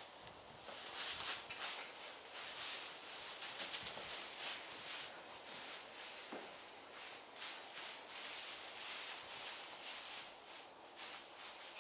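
Straw bedding rustling in irregular bursts under a Clydesdale foal's hooves and a person's feet as they move about.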